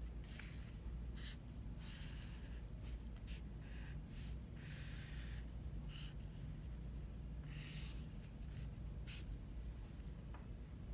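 Sharpie felt-tip marker drawing on paper: a series of scratchy strokes, some quick and some drawn out for about a second, with a steady low hum underneath.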